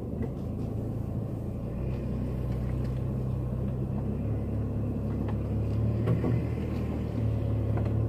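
Car engine running steadily at low speed as the car drives slowly along a dirt forest track, heard from inside the cabin, with a few faint light knocks.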